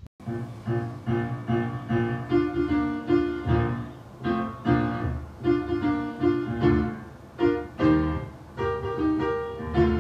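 Piano music that starts abruptly, with short notes and chords struck in a steady rhythm.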